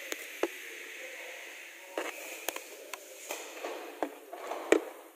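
A handful of short, sharp clicks and knocks at irregular moments over a faint steady hiss, the loudest one near the end.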